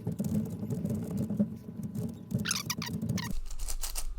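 Rapid clicking and rattling of a MoYu Meilong V2 7x7 speedcube's plastic layers being turned quickly during a solve.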